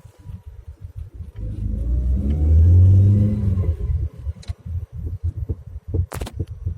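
BMW E36 engine and drivetrain revving up and back down over about two seconds, with irregular low knocks throughout. Two sharp clicks follow, the louder one near the end.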